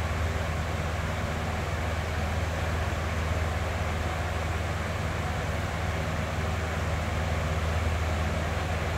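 Box fan running steadily: an even rush of moving air over a low, constant hum.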